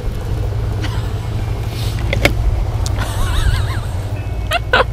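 Wind rumbling steadily on the microphone, with a few sharp clicks.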